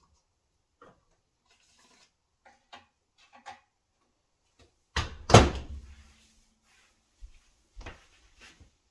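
Light clicks and knocks of handling, then a door shutting with a loud double clunk about five seconds in, followed by a few softer knocks.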